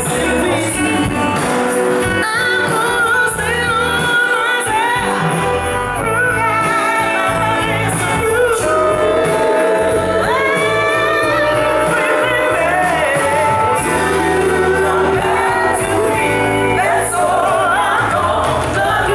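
A woman singing lead over a full live band with electric guitars. She sings long wavering notes.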